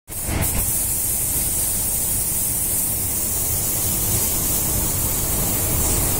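Automotive paint spray gun hissing steadily as compressed air blows through it while triggered, with a low rumble underneath.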